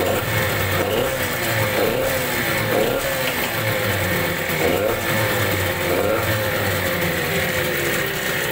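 ALLFA CG 9.8 outboard's two-stroke engine idling on its first run in a test tank, its note dipping and picking back up every second or so.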